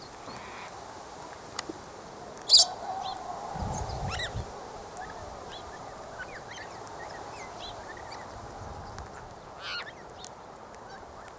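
Outdoor birds calling: scattered short squawks and chirps, the loudest a harsh squawk about two and a half seconds in and another near the end, with a brief low rumble around four seconds in.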